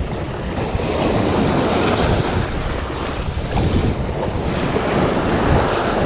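Choppy sea waves washing and splashing against a breakwater, with wind buffeting the microphone.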